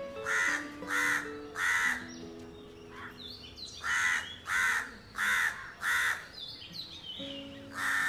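Crow cawing: harsh caws about two a second, three in the first two seconds, then four more from about four seconds in, and one more near the end.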